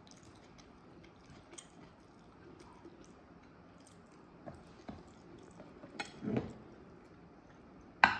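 Close-up eating sounds: faint chewing and wet mouth clicks as rice is eaten by hand. Near the end, a sharp clink as a ceramic bowl is set down on a ceramic plate.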